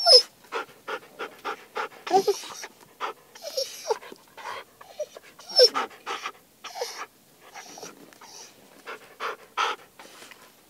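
Siberian husky panting in quick, uneven breaths, with brief whining sounds between them; the panting dies down near the end.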